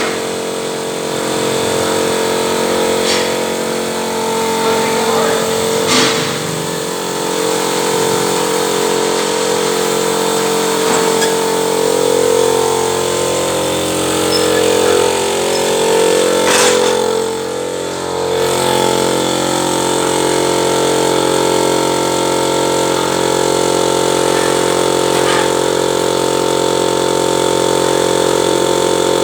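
Machinery of a wood-fired steam boiler running with a steady, many-toned drone, broken by a few sharp clicks or knocks.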